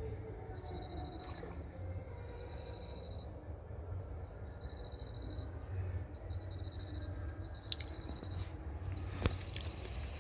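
Open-air ambience: a steady low rumble under a thin high-pitched call that repeats about every second and a half. Two sharp clicks come near the end.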